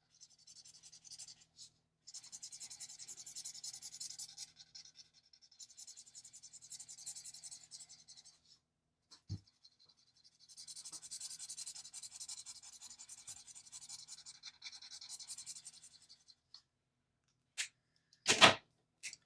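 Ohuhu alcohol marker rubbing back and forth on paper in steady scratchy shading strokes, in several stretches of a few seconds each. A small knock about halfway and a few sharp clicks near the end.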